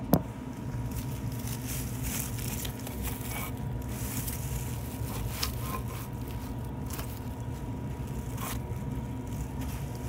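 Trane gas-pack unit running with its indoor blower turning: a steady hum with a faint constant tone. A few light clicks and knocks come through it, the sharpest right at the start.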